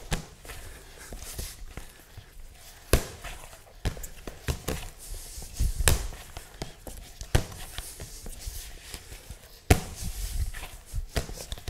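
Hands kneading and punching a stiff rye dough in a plastic mixing bowl: irregular dull thuds and sharp knocks, the loudest about three seconds in and again near the end.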